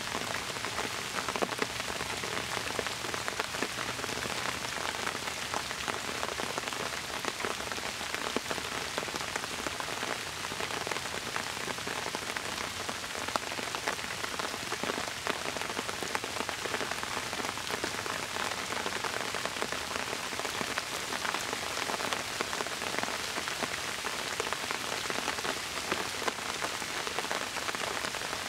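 Steady rain falling on bamboo foliage: a constant even hiss made of many separate drop hits, with no change through the whole stretch.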